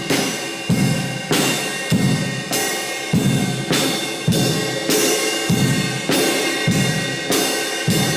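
Drum kit played in a steady beat, its drums muffled under cloth covers. Heavy strikes fall just under twice a second with lighter hits between, over ringing cymbals.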